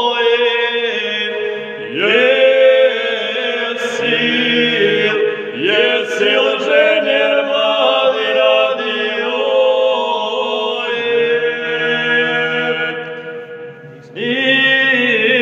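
Two men singing a Serbian folk song unaccompanied, in long held, sliding notes. New phrases begin every few seconds, and the sound fades briefly just before the last phrase starts near the end.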